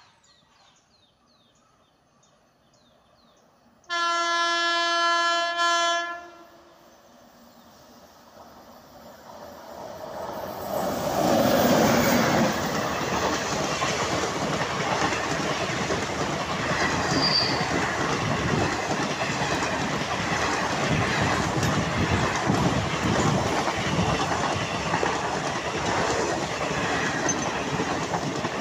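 A WAP-7 electric locomotive sounds its horn in one steady blast of about two seconds, then its express train approaches and passes close by: a rush that builds up over a few seconds, then the continuous clickety-clack and rumble of the passenger coaches rolling past.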